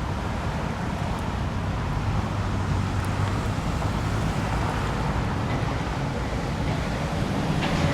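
Steady road traffic noise: vehicle engine and tyre noise on a busy roadway, with a low hum coming and going.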